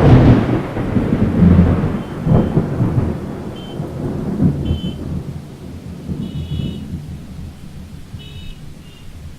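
A loud thunderclap right at the start, its low rumble rolling on and slowly dying away over several seconds, over steady rain. Several short high beeps or chirps come through from about two seconds in.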